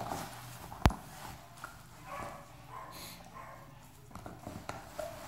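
A terrier gnawing a bone-shaped chew toy, its teeth clicking and knocking irregularly on the hard toy, with one sharp, louder click about a second in.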